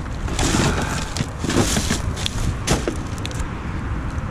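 Rubbish being shifted around in a dumpster: a few rustles, scrapes and knocks in the first three seconds, then only a steady low rumble.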